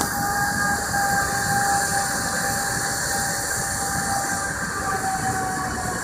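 Crane's engine and hoist running steadily while lowering a suspended load, a low mechanical drone with a steady high whine.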